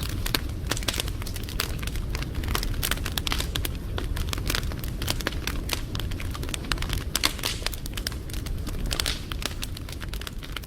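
Wood fire crackling: dense, irregular snaps and pops over a steady low rumble of burning.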